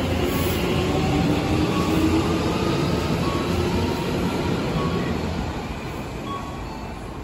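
Odakyu 3000 series electric train pulling out of the station, a steady rumble of wheels on rail with short whining tones. It fades from about five seconds in as the last car passes.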